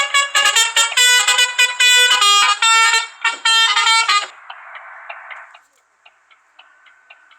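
Basuri telolet horn on a bus playing a quick melody of short multi-tone blasts, stopping about four seconds in, followed by a brief hiss and faint ticking.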